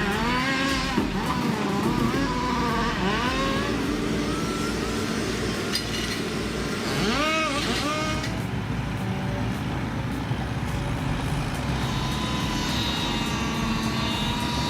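Heavy machinery working: a diesel engine runs steadily under pitched whines or squeals that rise and fall, the strongest one arching up and down about seven seconds in.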